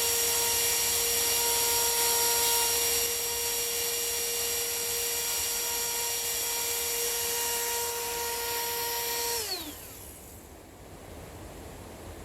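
High-speed rotary power tool cutting the latch mortise in a wooden door edge, running at a steady high whine. About nine seconds in it is switched off and winds down with a falling pitch.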